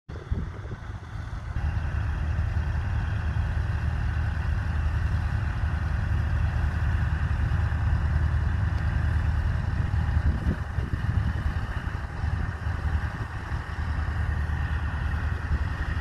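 New Holland T6040 tractor's diesel engine running steadily as it pulls a two-furrow mounted plough through the soil, getting louder about a second and a half in.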